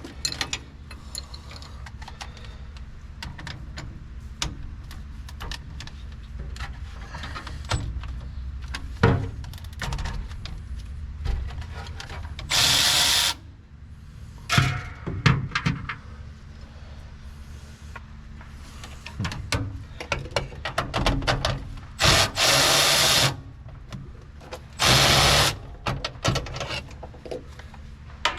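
A handheld power drill-driver running in three short bursts, about a second each, as fasteners are driven out while the steering column is removed. Scattered knocks and clanks of tools and metal come between the bursts.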